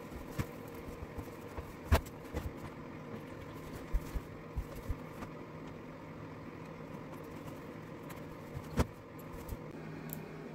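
Scattered knocks and clicks from a front-loading washing machine being loaded and set up, over a steady low hum.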